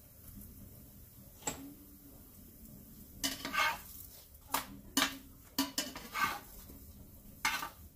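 A utensil scraping and clinking against a frying pan as a flour tortilla is turned and pressed in it: one click early, then a run of short scrapes and taps in the second half.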